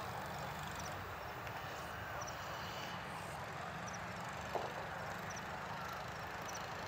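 Steady low rumble of a taxiing Airbus A330 freighter's jet engines at low thrust, with small birds chirping over it and one short sharp click about four and a half seconds in.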